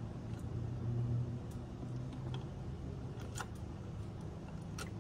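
A few light metallic clicks of a wrench working on the tractor's throttle linkage, the clearest about three and a half seconds in and just before the end, over a steady low hum.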